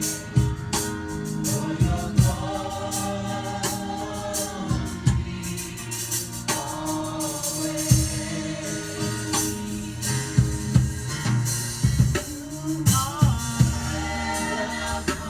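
Live gospel praise and worship music: sung voices holding long notes over a band with a drum kit keeping a steady beat.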